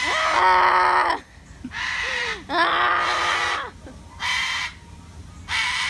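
Cockatoo screeching: a series of about five loud, harsh calls, the longest about a second each, with short pauses between.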